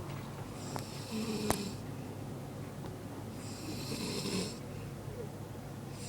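Snoring: two long snores about three seconds apart, each lasting about a second, with a third starting at the end. A sharp click comes during the first snore, over a steady low hum.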